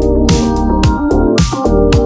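Background music: an electronic track with a steady beat of about two drum hits a second and held keyboard chords.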